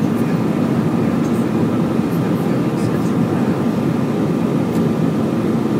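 Steady cabin noise inside an Airbus A320 in flight: a deep, even rush of engine and airflow, with a faint steady whine above it.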